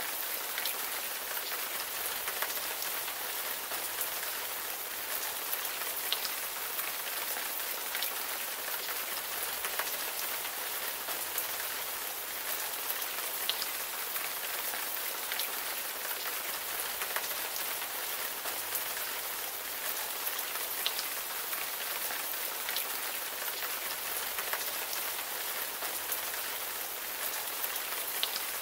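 Steady rain falling, a continuous hiss with scattered drop ticks.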